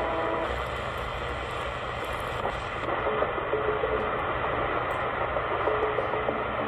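Shortwave static and hiss from the Sangean ATS909x2's speaker as it is tuned up through the 16-meter band between stations, with short faint tones here and there.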